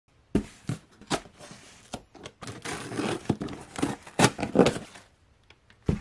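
Cardboard shipping box being opened and unpacked by hand: packing tape and paper tearing and crinkling, broken by several sharp knocks and thunks of cardboard against the table.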